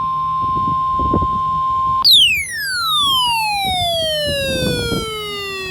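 Emergency alert test tones. A steady beep near 1 kHz lasts about two seconds, then a siren-like tone with overtones glides down from high to low over several seconds.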